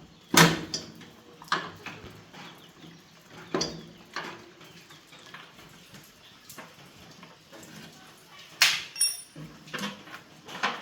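Irregular knocks and clinks of hand tools and metal parts being handled during repair work, the sharpest knock about half a second in, with a faint low hum underneath.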